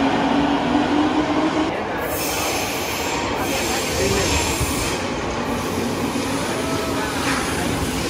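Electric train running. A low whine rises slightly in pitch during the first couple of seconds, then gives way to a steady rumble and hiss of wheels on rails.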